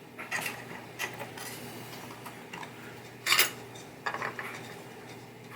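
Pinball pop bumper parts and a screwdriver clicking and clattering as the bumper is unscrewed and taken apart: scattered light clicks, with one louder short rattle a little past halfway.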